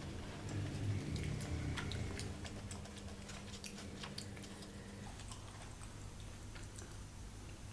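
Close-up chewing with the mouth closed, with small wet clicks. The chewing is strongest in the first couple of seconds, then gives way to sparse light clicks as fingers pick food from a cardboard takeaway box.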